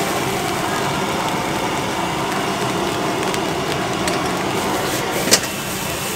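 Gas wok burner running at full flame with noodles and cabbage sizzling as they are stir-fried with chopsticks, a steady noise throughout. One sharp click about five seconds in.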